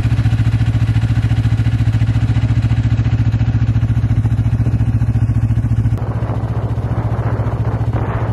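Yamaha Venture 500cc four-stroke snowmobile engine running steadily with an even pulsing hum. About six seconds in, a rushing hiss joins the engine and the engine sounds a little quieter.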